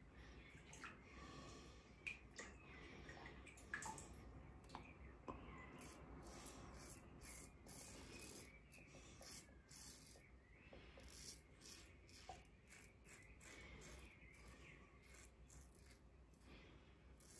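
Faint scratching of an Edwin Jagger 3one6 safety razor with a Tatara blade cutting lathered stubble, in a run of short strokes across the grain. A few light clicks come in the first few seconds.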